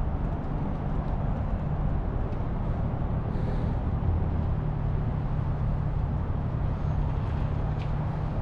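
Steady low mechanical hum, with a constant rush of outdoor background noise over it.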